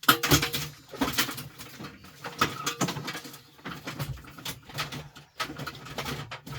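Irregular clicks, knocks and snaps of hard plastic and circuit boards being handled and pried apart, as appliance display boards are stripped of their plastic housings and clips. The loudest knocks come in the first second.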